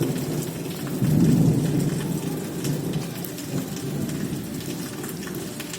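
Heavy rain falling steadily with a roll of thunder that swells about a second in, then rumbles on and slowly fades.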